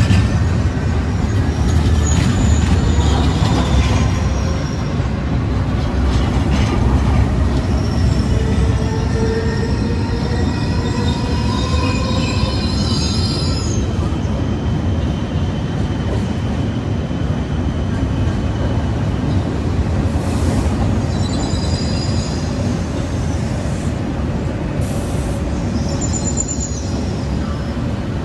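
Passenger train rolling slowly into a terminus station, its wheels squealing on curved track and points in several bouts over a steady low rumble.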